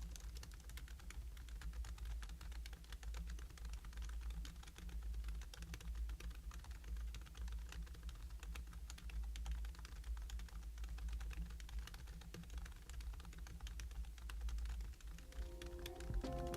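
Steady, fast typing on a Hansung GK698 OfficeMaster low-noise pantograph (scissor-switch) keyboard with a key-skin cover over the keys: a dense run of soft, quick key clicks. Music comes in near the end.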